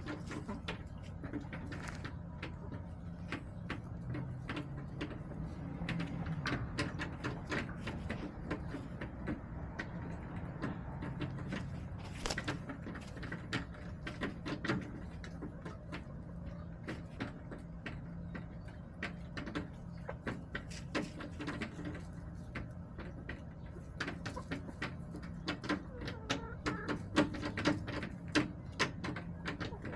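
Backyard hens pecking and scratching, a steady patter of quick taps and clicks, with a few soft clucks over a low steady hum.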